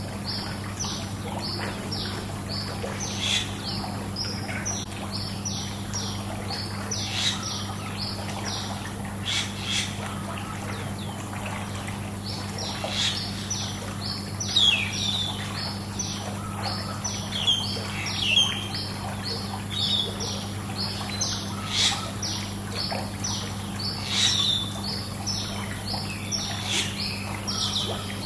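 Small birds chirping in quick repeated calls, some of them louder, over the steady sound of running pool water and a constant low hum.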